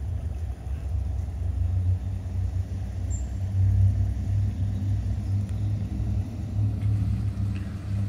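A steady low rumble with a fluttering level.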